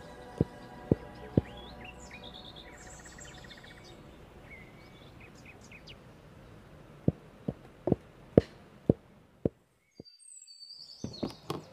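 Long wooden pestle pounding into a mortar: dull thuds about twice a second, three at first, then a pause of several seconds and six more, with birds chirping throughout. The sound cuts out briefly near the end.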